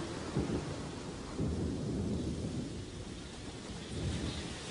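Rain falling steadily, with low rumbles of thunder swelling and fading underneath.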